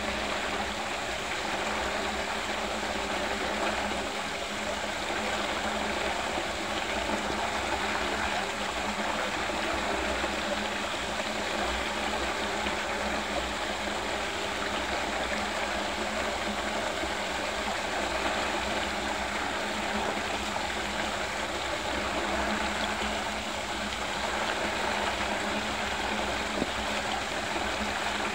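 Water rushing steadily as it swirls and drains down the hole of a whirlpool vortex, with a faint steady hum underneath.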